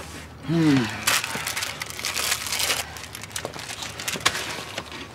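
Crunching and cracking, a dense run of sharp cracks and crackles. A short pitched sound, like a groan, rises and falls about half a second in.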